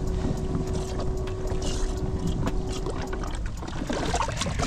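Wind buffeting the microphone aboard a bass boat, a dense low rumble, with a thin steady hum that stops about three seconds in. A few short clicks and knocks come near the end.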